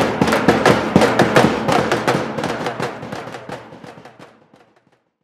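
A small marching drum beaten in a fast, steady rhythm of about six strokes a second, fading out over the last two seconds.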